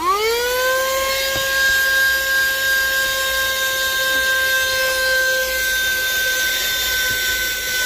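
Handheld vacuum's small electric motor switching on, its whine rising quickly to full speed, then running steadily with a rush of air as it sucks dust out of the console. The pitch dips slightly near the end.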